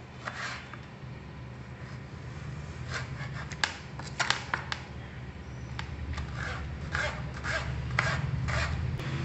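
Kitchen knife chopping a vadukappuli lemon into small pieces on a plastic cutting board: about a dozen short, sharp taps of the blade on the board at an irregular pace, coming more often from about three seconds in.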